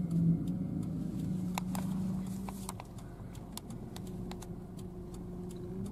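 Low-speed car cabin noise: a steady low hum with scattered light ticks, about two a second.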